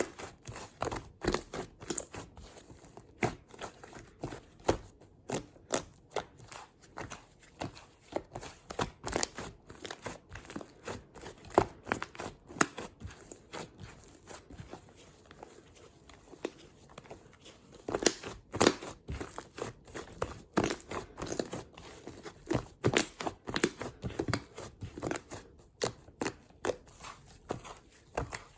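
Slime being worked by hand, giving irregular crisp clicks and pops several times a second.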